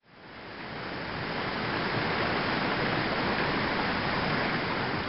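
Wastewater rushing and splashing through a concrete channel at a sewage treatment plant, a steady rush that fades in over the first second.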